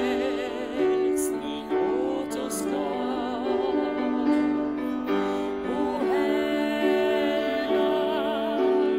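A woman singing with vibrato over a keyboard accompaniment of held chords.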